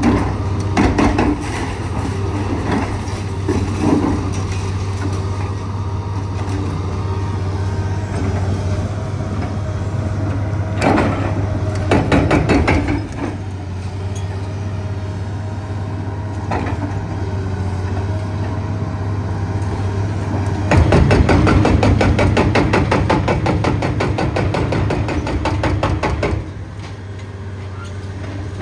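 Liebherr 954 excavator's diesel engine running steadily, with scattered clanks and knocks. For about five seconds in the second half its hydraulic breaker hammers in a rapid, even stream of blows.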